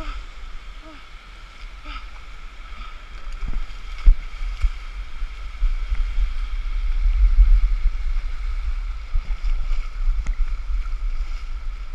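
Shallow stream water rushing over a granite slab, heard from a camera sliding down it at water level, with a heavy, uneven low rumble of buffeting on the microphone that swells in the second half. A single sharp knock about four seconds in.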